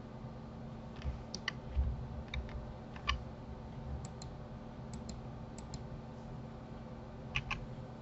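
Scattered clicks of a computer mouse and keyboard, mostly in quick pairs, over a steady low hum.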